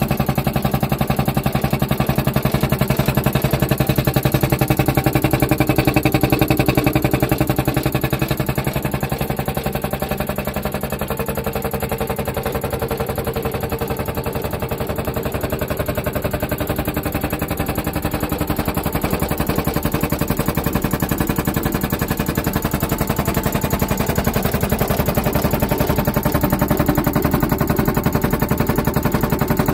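Belt-driven single-cylinder piston air compressor, powered by an electric motor, running steadily with a fast, even knocking from the pump.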